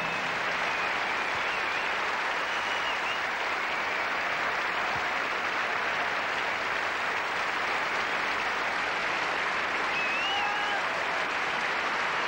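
Large concert audience applauding steadily, with a few cheers from the crowd, the clearest about ten seconds in.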